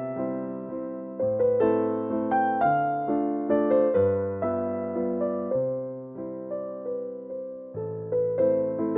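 Background music: a slow, gentle piano melody of single notes over held bass notes, each note fading after it is struck.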